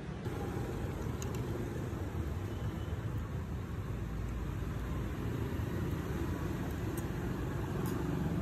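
Steady road traffic noise from a busy street, a continuous low rumble of passing vehicles, with a few faint light clicks.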